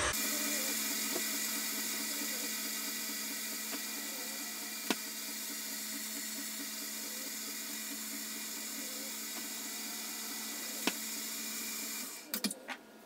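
Electric tilt-head stand mixer running at a steady speed, beating cake batter in its steel bowl, with a couple of sharp ticks along the way. It is switched off about twelve seconds in, followed by a few quick knocks against the bowl.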